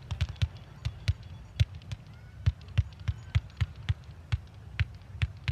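Fireworks going off in a rapid, irregular string of sharp bangs, several each second.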